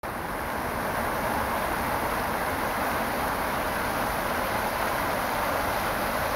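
Fountain jet falling back into its pool: a steady splashing hiss of water.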